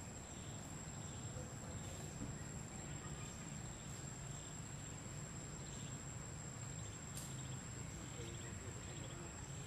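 Insects calling: a steady high-pitched drone with fainter chirps about once a second, over a low steady rumble.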